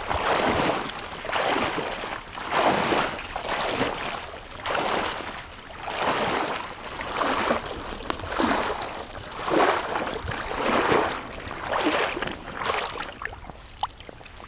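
Wading through flooded woods in waders: water sloshing and swishing with each stride, about once a second, in a steady walking rhythm that eases off near the end.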